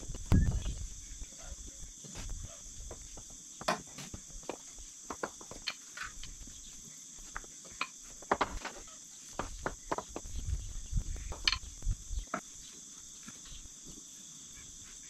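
A steady high-pitched insect chorus, with scattered clicks and knocks throughout and a louder low thump just after the start.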